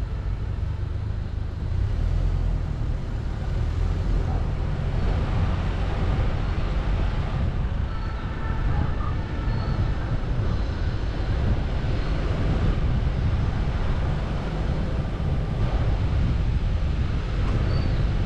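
Steady low rumble of road and wind noise from travelling along a street in a moving vehicle, heaviest in the bass.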